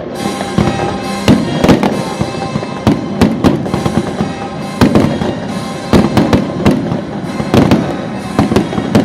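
Fireworks bursting in quick succession, many sharp bangs a second or so apart, with music playing underneath.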